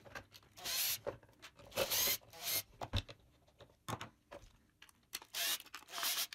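Short whirring bursts from a cordless drill driving screws into the wooden gearbox lid, two of them near the end, between scrapes and a couple of clicks of the wooden gearbox being handled.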